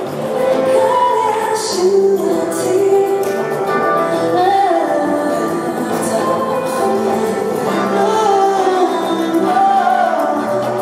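Music with a woman singing a melody over instrumental backing.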